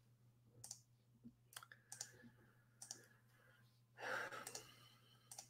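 Near silence with a few faint, scattered clicks at a computer and a short exhale about four seconds in.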